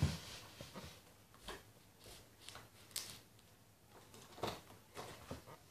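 Faint, irregular rustles and soft knocks of a person moving about close to the microphone, about a dozen short sounds scattered through the stretch.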